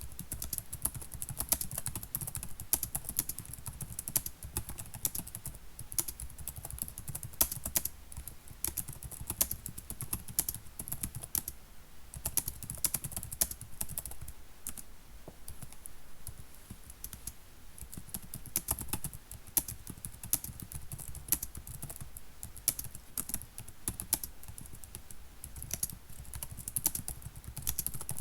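Computer keyboard typing: a fast, irregular run of key clicks with brief pauses.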